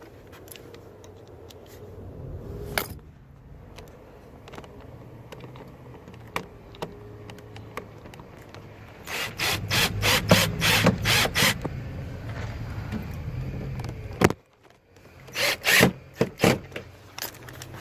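Hand work with a screwdriver and parts on a car's interior door handle and door. Two runs of short scraping, rubbing strokes: about six in quick succession in the middle, then a few more near the end.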